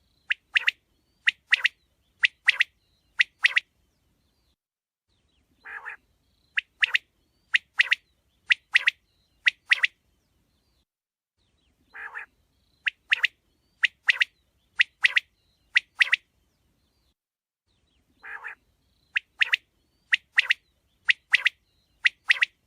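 Quail calling in a repeating phrase about every six seconds: a short, rough, lower note followed by a run of loud, sharp, high notes in quick pairs. The phrase sounds the same each time.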